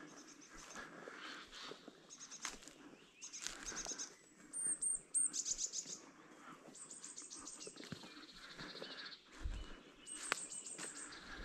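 Several songbirds singing: quick high trills and series of repeated chirping notes, one after another, the loudest a fast trill about five seconds in. A brief low thump comes late on.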